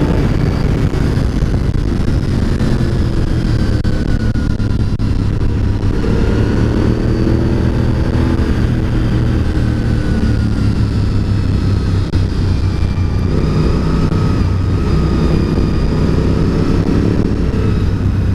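Honda RC51's 1000 cc V-twin engine running steadily at road speed, its pitch rising and falling gently through the curves, with wind rushing over the microphone.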